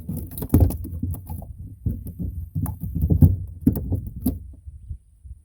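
About a dozen irregular knocks and rattling clatters in a small fishing boat while a catfish line is being worked. They die away near the end.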